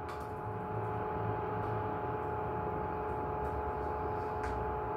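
Steady mechanical room hum with a few fixed tones and a low rumble, with a few faint clicks.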